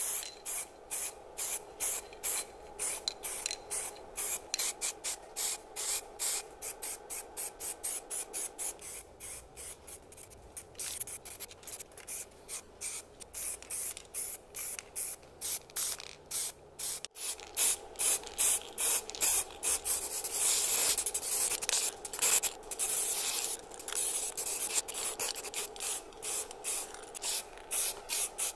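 Aerosol spray can of primer and brake caliper paint hissing in many short, rapid bursts, about three a second, as brake calipers are coated.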